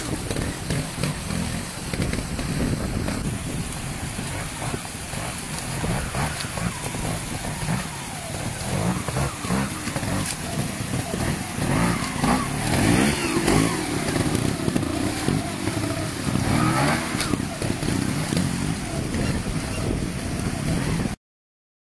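Pre-65 classic trials motorcycle engines revving up and down as the bikes pick their way over rocks in a stream bed, with people's voices at times. The sound cuts off abruptly near the end.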